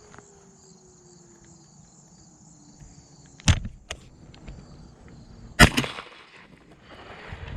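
Two shotgun shots about two seconds apart, the second followed by a rolling echo, over the faint steady trilling of insects.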